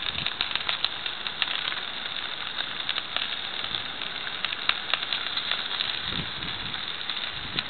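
Chicken wings and zucchini sizzling in foil pans on a barbecue grill: a steady hiss with constant crackling and spitting pops.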